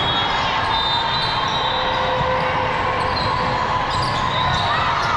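Busy volleyball gym din: a steady wash of crowd noise with balls being hit and bounced, and scattered short squeaks.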